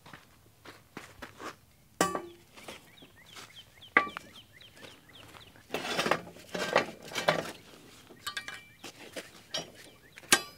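Steel pallet fork tine being carried and hooked onto the fork frame: metal clinks and footsteps on dirt, with sharp ringing clanks about two and four seconds in and a longer steel-on-steel clatter from about six to seven and a half seconds as the tine goes onto the rail.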